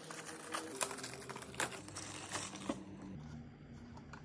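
Plastic packaging crinkling and light clicks as drone accessories are handled, with several sharp rustles in the first three seconds and quieter handling near the end.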